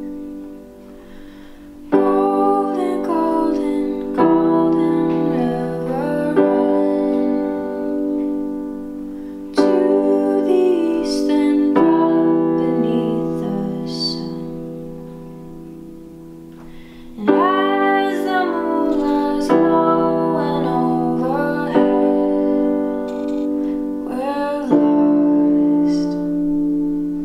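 Digital piano playing slow sustained chords. A new chord is struck every few seconds and left to ring and fade.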